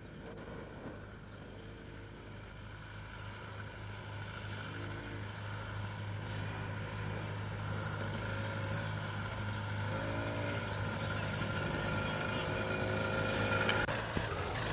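Engine of a child's small motorbike running, growing steadily louder as it approaches, with brief changes in pitch now and then.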